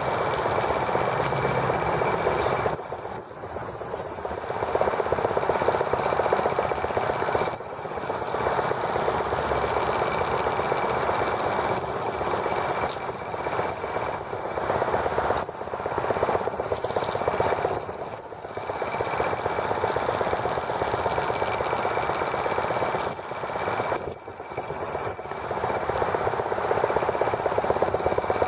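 Small gasoline engine of a T26 model toy tractor running fast with a rapid, even exhaust beat as the tractor drives, its level dipping briefly several times.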